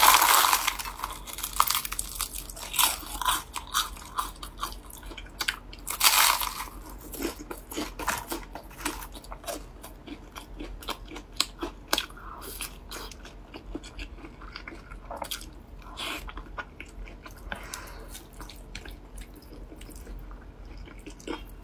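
Close-miked eating sounds: a loud crunching bite into a crispy fried shouzhuabing flatbread at the start and another crunch about six seconds in. Chewing follows, with many small crackles and mouth clicks that thin out over the rest of the time.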